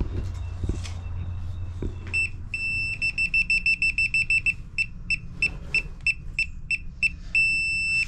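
DeWalt laser receiver beeping as it reads a rotary laser's beam: rapid beeps from about two seconds in, then slower beeps, then a steady tone near the end, the signal that the receiver sits on grade.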